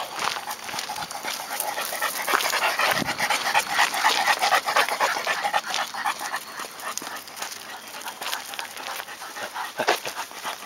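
Large dogs panting as they walk on leash, with footsteps crunching on a gravel track.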